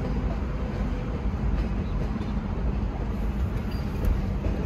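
Freight train cars rolling past at close range, a steady low rumble of wheels on rails.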